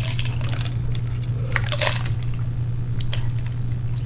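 Soft wet mouth and throat sounds of a woman straining to force a burp: short clicks and gulps, with a small burp among them, over a steady low hum.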